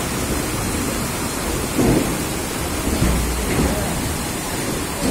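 Floodwater churning and splashing around the wheels of a goods train rolling slowly through water over the track: a steady noisy wash, with two dull thumps about two and three seconds in.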